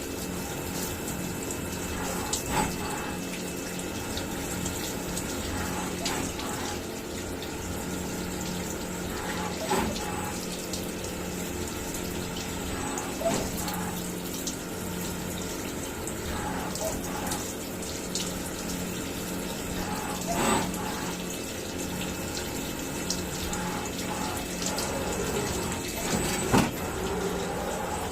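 CNC milling machine boring out a wheel's hub hole: a steady machine hum with a water-like hiss, and a sharper cutting sound that comes back every three to four seconds.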